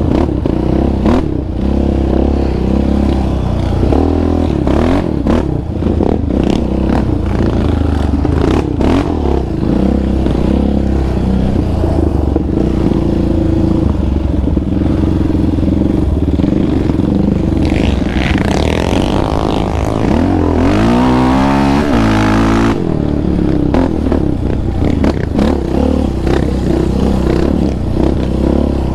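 Yamaha Raptor 700R quad's single-cylinder engine through an aftermarket Monster exhaust, running under throttle on a dirt trail, with the chassis clattering and knocking over bumps. About two thirds through, the revs swing quickly up and down for a few seconds.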